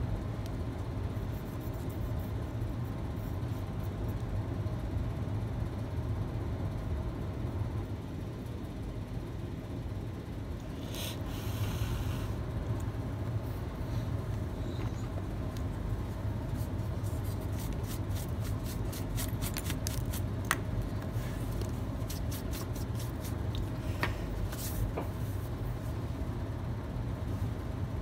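Scrubbing and scraping as a freshly soldered iPhone X logic board is cleaned, with a brief hiss partway through and a run of small clicks in the second half, over a steady low hum.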